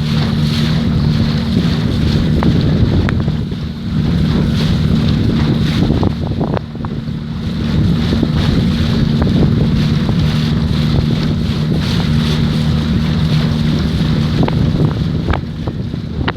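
Boat motor running steadily underway, a constant low drone, with wind buffeting the microphone and water rushing past.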